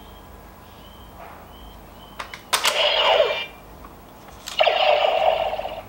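Bandai DX Decadriver toy belt: faint beeps from its small speaker, then plastic clicks about two seconds in as the buckle is worked, followed by two loud bursts of electronic sound effects from the belt.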